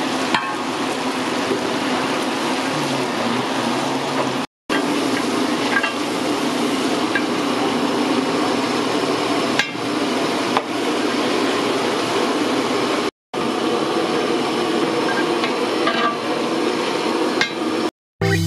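Big pots of rice and meat gravy boiling hard: a steady bubbling hiss, with scattered sharp clinks of a steel ladle knocking against the metal pot.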